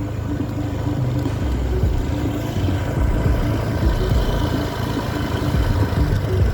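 A small engine running steadily, with a regular low pulsing and rushing noise, as heard while riding along.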